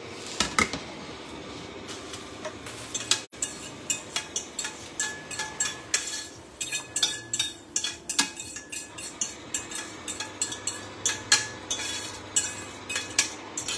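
A utensil scraping and clinking against a stainless steel frying pan as sauce is scraped out of it into a larger pot: a run of irregular metallic clinks and scrapes, about two or three a second.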